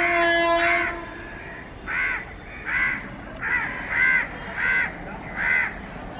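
An approaching WAP7 electric locomotive's horn, one steady held note, ends about a second in. Over it and after it a bird gives about seven loud, separate calls, one every half second to a second.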